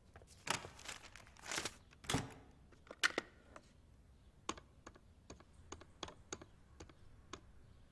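Rustling and a dull thump, then a click as the handset of a corded desk phone is picked up, followed by about ten keypad buttons pressed one after another as a number is dialed.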